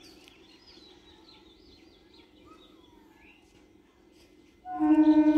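Birds chirping over a faint steady hum. Near the end, the approaching EMU electric local train sounds a loud, steady horn blast that starts suddenly.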